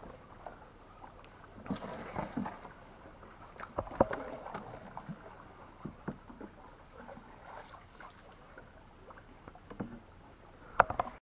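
Irregular knocks and clatter in a wooden dugout canoe as a fisherman hauls in a set line by hand, with the sharpest knock near the end.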